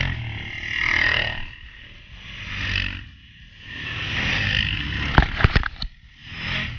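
A string of ATVs passing close by one after another on a gravel road, each engine swelling and fading in turn. A quick run of sharp clicks comes about five seconds in.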